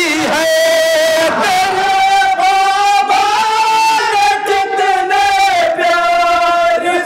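Group of men singing a manqabat (devotional praise song) in chorus, with long held notes that bend between phrases.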